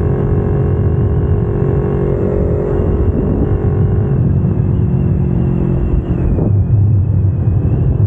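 Kawasaki Ninja 250R's parallel-twin engine with aftermarket headers and exhaust, running steadily under way, with a brief change in the engine note about six seconds in.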